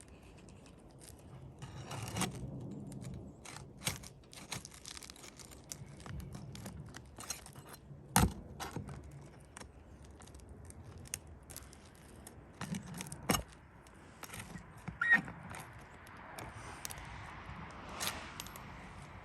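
Nails being pried out of roof shingles: a metal tool scraping and clicking against the shingles and nails, with a few sharp knocks.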